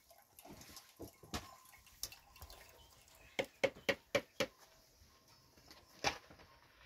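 Scattered sharp knocks, with a quick run of five about three and a half seconds in.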